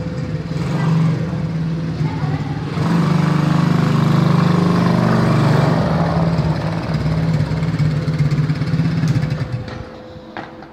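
Small 125cc petrol quad bike engine running. It grows louder about three seconds in, then fades away near the end.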